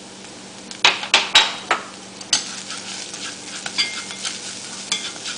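A few sharp knocks as ground spices are tapped out of a small bowl into a nonstick frying pan. Then a wooden utensil stirs and scrapes the pan, with small clicks and brief metallic rings, over a light sizzle of onion, ginger and garlic frying in oil.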